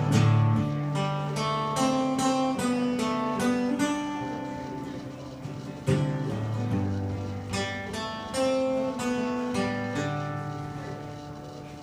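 Solo acoustic guitar playing an instrumental passage, with strummed chords and picked single notes. A strong strum at the start and another about six seconds in each ring out and fade, and the playing grows quieter toward the end.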